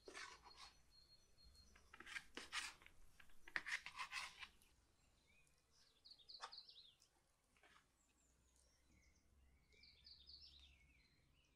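Faint scraping and rubbing of soft bun dough being handled and pulled apart on an aluminium tray, three short bursts in the first half, the third the loudest. Birds chirp faintly in the background in the second half.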